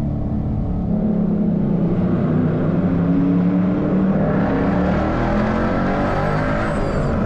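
2012 Ford Mustang Boss 302's 5.0-litre V8 running under steady throttle through its aftermarket exhaust, the engine note rising gently a couple of times.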